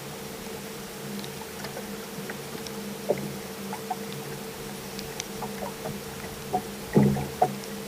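A boat motor hums steadily, with scattered small clicks and taps. There is a louder knock about seven seconds in and a smaller one just after.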